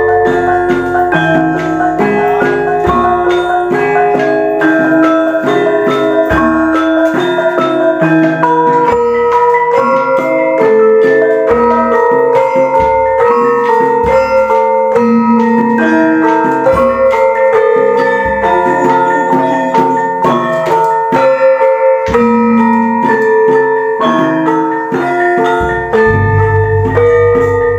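Javanese gamelan ensemble playing: bronze bonang kettle gongs struck with padded sticks ring over interlocking metallophone melodies, with deep low strokes every few seconds.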